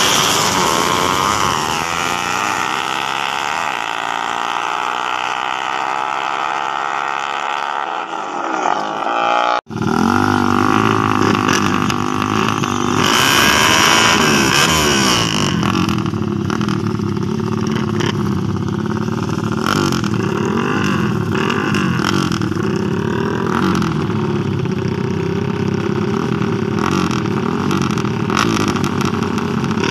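Small racing underbone motorcycles. First a pair accelerates hard away down the road, their engine notes dropping in pitch as they pull away. After a sudden cut about ten seconds in, two bikes sit on the start line with their engines revved up and down over and over.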